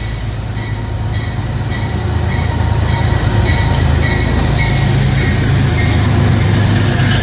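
Metro-North GE P32AC-DM Genesis locomotive running on diesel power passing close by with its train, a deep steady engine drone with wheels on the rails. It grows louder over the first few seconds, then holds steady as the locomotive goes past.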